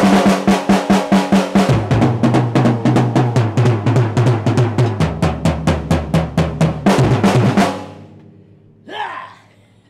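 Acoustic drum kit played in a fast, even roll of about six strokes a second. The roll moves down the kit, its pitch stepping lower twice, with the bass drum under it. It stops sharply about three-quarters of the way through and rings out.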